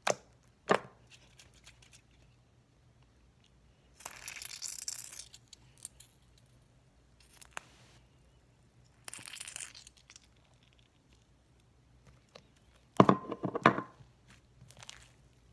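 Slime mixed with silly string being squished and pulled apart by hand: a couple of sharp pops near the start, two short tearing hisses, and a loud crackling burst near the end.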